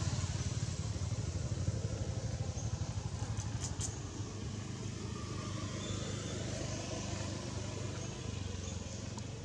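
Steady low rumble of outdoor background noise, with a few faint clicks about three and a half seconds in.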